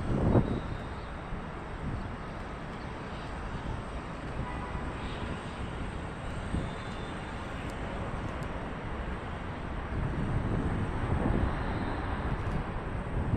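Steady outdoor rumble of wind on the microphone and distant jet noise from the airport, swelling near the end as gusts pick up.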